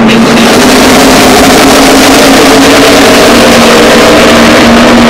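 NASCAR stock cars' V8 engines running loud at a steady, even pitch.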